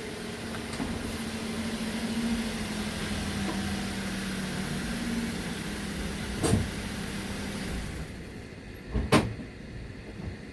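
A motor vehicle running steadily, with a single knock about six and a half seconds in and a sharper double knock near the end, after which the running noise is quieter.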